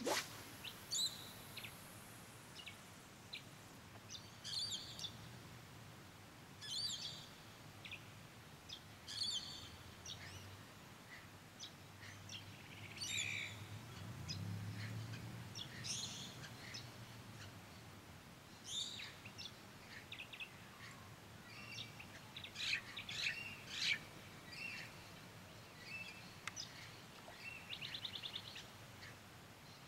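Small birds chirping and calling in short, separate bursts over a quiet background, with a brief swish of a fishing cast right at the start. A faint low hum rises and fades around the middle.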